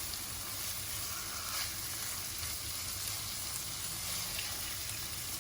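Cod pieces frying in a pan of cumin, ginger-garlic and chili paste, a steady sizzle.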